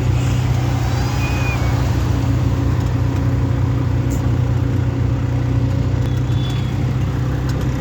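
Auto rickshaw engine running steadily during a ride, a continuous low hum, with a couple of faint, brief high chirps over it.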